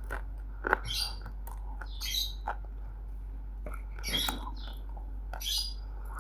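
Close-up crunching of roasted multani mitti (baked clay) being bitten and chewed. There are about four short, crisp, high crunches a second or so apart, with a few sharp clicks between them.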